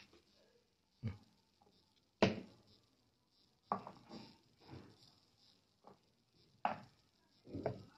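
Small filled glass bottles being handled and set down on a plastic kitchen scale and the bench, giving about eight separate knocks and clinks, the loudest about two seconds in.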